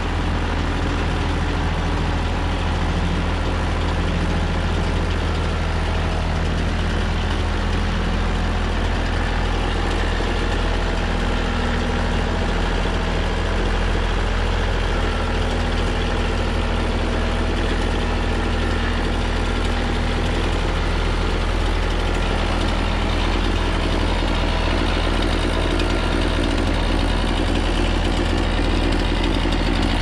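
Mahindra tractor's diesel engine running steadily as it works the front-end loader, lifting a load of wood slabs.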